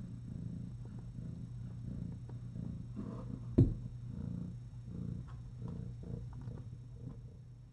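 Cat purring close to the microphone, a steady low rumble swelling and easing about twice a second with each breath. A single sharp knock about three and a half seconds in.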